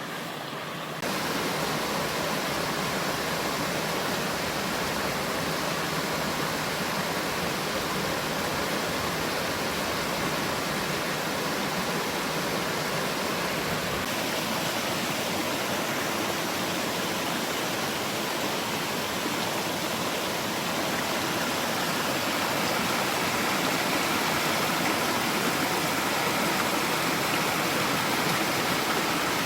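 Mountain valley stream flowing, a steady rush of water that gets a little louder about a second in.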